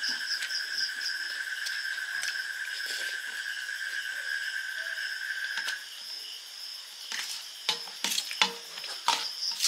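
A steel spoon scraping and clinking against a steel plate as puffed rice is stirred and scooped, in a run of sharp clicks in the last few seconds. Before that a steady high-pitched whine carries on and stops about six seconds in.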